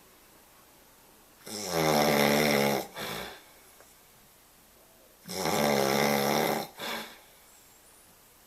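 A man snoring in his sleep: two long, loud snores about four seconds apart, each followed by a shorter, softer sound.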